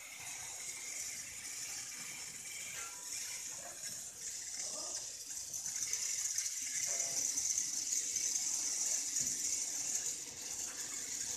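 Steady hiss of steam from open steam-jacketed mawa kettles of boiling milk, growing louder about six seconds in.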